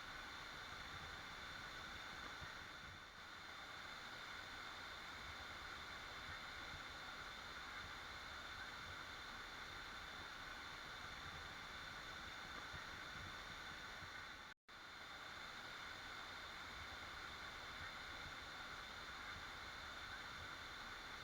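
Waterfall rushing with a steady, even hiss, faint overall. It drops out to dead silence for a split second about fourteen and a half seconds in, then carries on unchanged.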